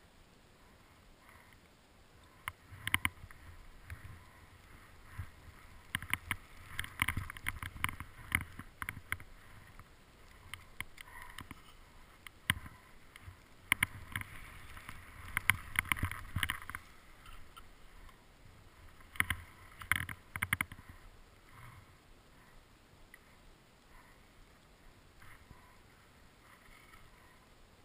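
Skis swishing through deep powder snow in a run of turns, with many sharp clicks and knocks over the hiss. It is busiest for most of the run, then turns quieter and sparser near the end.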